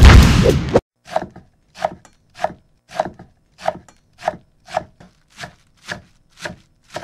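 A loud rush of noise for under a second, then a cleaver chopping on a wooden cutting board in a steady rhythm, about eleven strokes at a bit under two a second.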